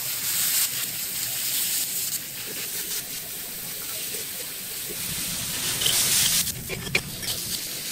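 Chicken pieces sizzling on a hot flat-top teppanyaki griddle: a steady hiss that surges louder at times, loudest about six seconds in as chicken meets the hot plate, with a few sharp crackles near the end.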